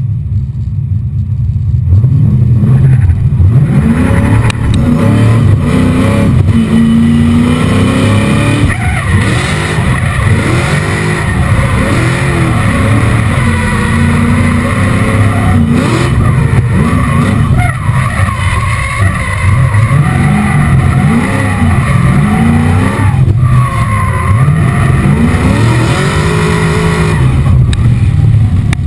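600 hp Chevrolet LS7 V8 in a Nissan S13 drift car revving hard through a drift run, its pitch swinging up and down again and again as the rear tyres slide. The engine comes up loud about two seconds in.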